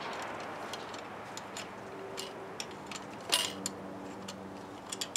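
Scattered small clicks and light metal taps from hand work on a bicycle mudguard stay and its clamp, the loudest a sharp clink about three seconds in.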